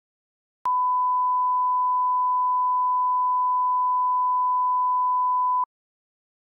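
A 1 kHz reference test tone of the kind that accompanies colour bars: one steady, pure beep about five seconds long, starting with a click just under a second in and cutting off suddenly.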